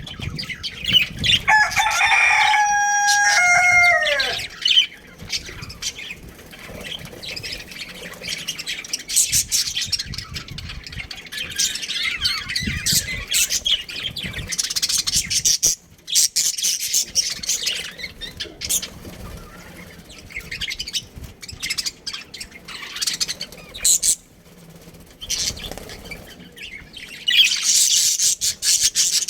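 Budgerigars chirping and chattering in short high calls throughout, with a rooster crowing once, lasting about three seconds and dropping in pitch at the end, starting about a second in.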